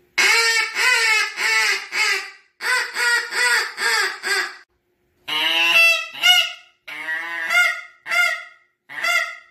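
Goose honks in quick runs of about four notes, with short pauses between runs; some notes break sharply upward in pitch.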